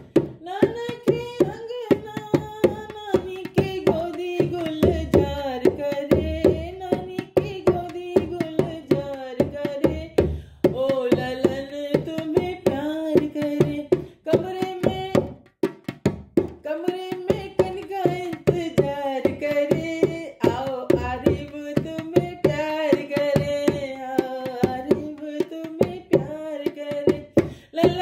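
A woman singing a sohar, a North Indian folk song for a birth celebration, over a steady beat of sharp percussive strikes, about two to three a second.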